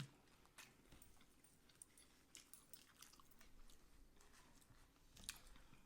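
Faint close-up chewing with scattered small crunches, someone eating tacos and nachos; the sharpest crunch comes near the end.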